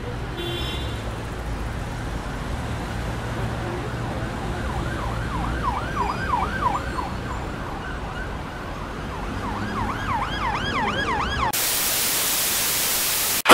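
City traffic rumble with an emergency vehicle siren wailing rapidly up and down in two spells. About eleven and a half seconds in, it gives way to loud television static hiss that cuts off suddenly near the end.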